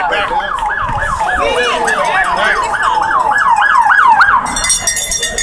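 Police car siren in yelp mode, a rapid rising-and-falling wail about three times a second that cuts off about four seconds in.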